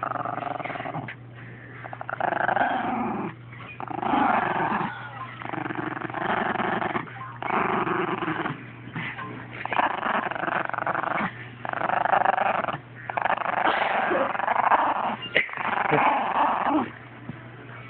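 Small curly-coated dog growling in a long string of growls, each about a second long with short breaks between.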